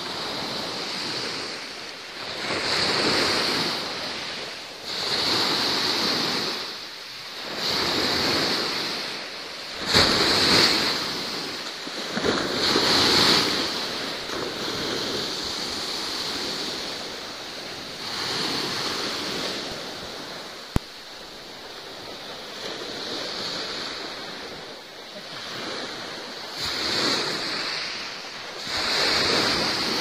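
Sea waves surging and receding in slow swells every two to three seconds. A single sharp click comes about two-thirds of the way in.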